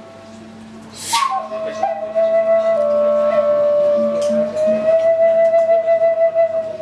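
A solo flute enters about a second in with a breathy attack and holds one long note, dipping slightly in pitch partway through and coming back up, with a pulsing wavering in loudness towards the end.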